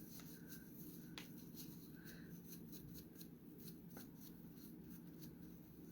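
Faint rubbing with a few soft ticks: eyeshadow swatches being wiped off the back of a hand.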